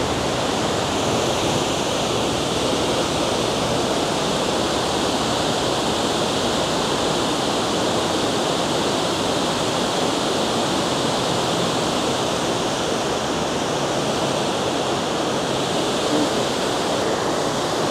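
Water pouring over a spillway: a steady, even rush of falling water.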